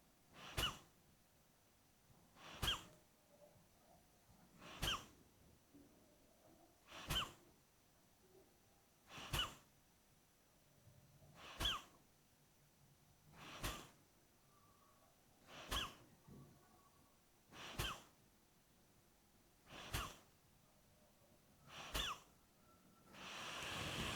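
Kapalbhati breathing: short, forceful exhalations through the nose, driven by squeezing the lower abdomen, one about every two seconds, eleven in all. Near the end comes a longer, drawn-in breath.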